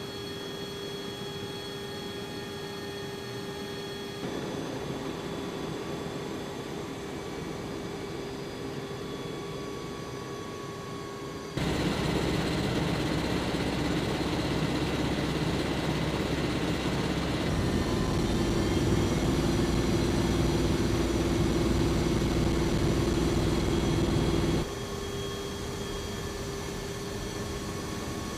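MV-22 Osprey tiltrotor's engines and proprotors running as a steady drone with a constant hum. The level steps up suddenly about twelve seconds in and drops back suddenly near the end.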